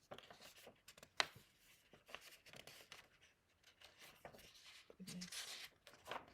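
Faint rustling and handling of a paperback picture book's pages, with a sharp tap about a second in and a longer rustle around five seconds in: a page being turned.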